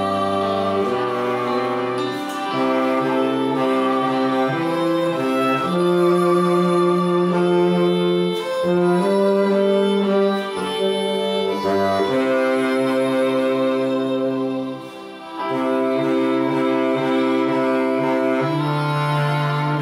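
Bass saxophone playing a slow hymn melody in long held notes, with a short pause about fifteen seconds in.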